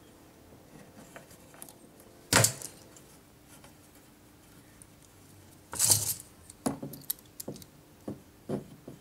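Small metallic clicks and clacks of pliers and a brass plate as a tight rivet pin is forced through the drilled hole: two louder clacks about two and a half and six seconds in, then a run of lighter clicks near the end.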